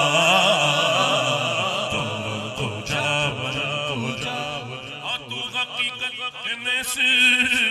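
A man singing an Urdu naat into a microphone, drawing out long wavering melismatic notes, then breaking into shorter phrases from about five seconds in.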